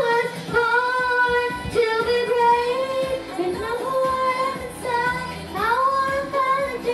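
Singing: a high voice holds long notes and slides between them, over quieter instrumental backing.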